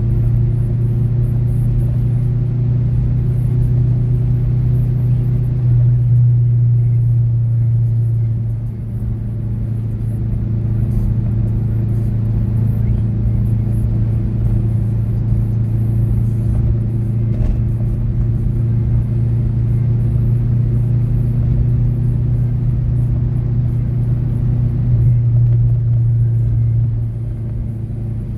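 Cabin sound of a Mazda6 fitted with a Mazdaspeed6 turbo engine and a full 3-inch exhaust, cruising with a steady low drone. The drone swells briefly about six seconds in and again near the end.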